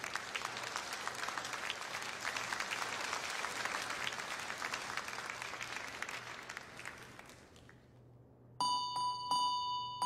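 A dense, even patter of many small clicks over a hiss, fading away over about seven seconds. About a second and a half later, bright bell-like chime notes begin a tune.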